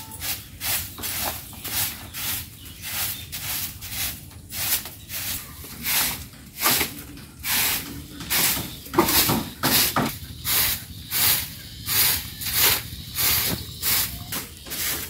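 Short hand broom sweeping a damp bare-earth yard strewn with straw and grass, a steady run of brisk swishes at nearly two strokes a second, with heavier scraping of debris about two-thirds of the way through.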